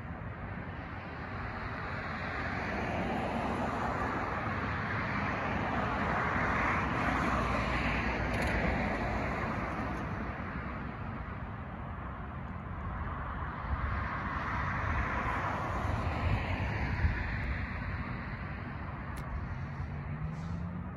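Road traffic: the noise of two vehicles passing in turn, each swelling and fading, the first about a third of the way in and the second a little past the middle.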